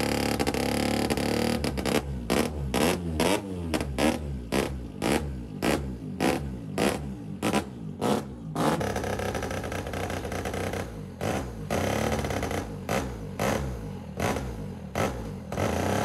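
Classic two-stroke race motorcycle engine, fired up on a roller starter, revved in sharp throttle blips about twice a second. There is a steadier stretch about halfway through, then the blipping starts again.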